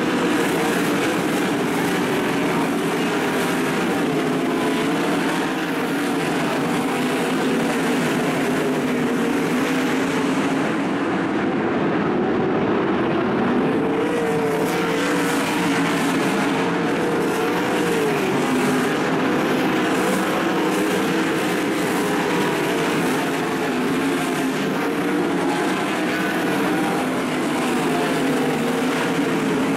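A field of 410 sprint cars racing on a dirt oval, their V8 engines at full revs in a steady, loud drone whose pitch rises and falls as the cars circle the track.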